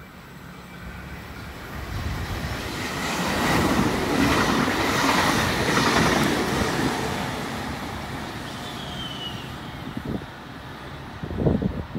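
Double-deck Sydney Trains electric train passing through a station at speed: the rumble and wheel-on-rail noise builds over a couple of seconds, peaks as the carriages rush past, then fades away. A brief low thump near the end.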